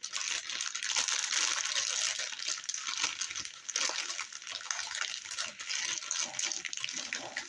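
Plastic packaging crinkling and rustling continuously as a boxed collectible figure is unwrapped, a dense irregular crackle with small dips and swells.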